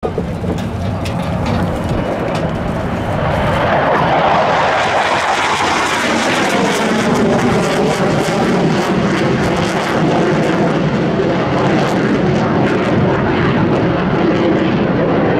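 FTC-2000 Shanying jet trainer's turbojet engine, heard as loud jet noise from an aircraft flying past overhead. It builds over the first few seconds, then holds steady and deepens in pitch as the jet passes.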